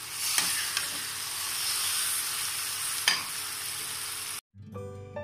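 Food sizzling in a frying pan with a steady hiss, and a few sharp clicks of a spatula stirring against the pan. It cuts off suddenly about four seconds in, and soft instrumental music begins.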